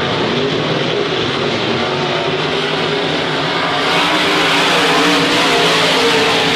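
Several IMCA modified dirt-track race cars' V8 engines running hard at racing speed, their pitches wavering together as the pack goes round the track. The sound swells about four seconds in as the cars come closer.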